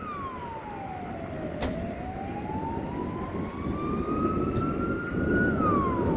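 A siren wailing slowly: its pitch falls, then climbs over about four seconds and starts to fall again near the end. Under it runs a low rumble that grows louder.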